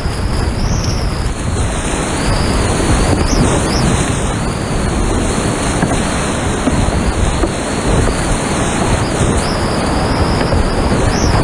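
Loud, steady rush of whitewater rapids churning around a kayak running through them.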